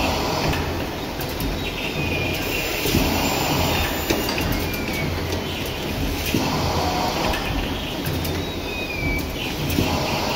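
Sugar-box forming machine running, its mechanism going through a repeating cycle about every three to three and a half seconds as it folds cardboard cartons. Steady mechanical clatter with clicks and a few short high squeaks.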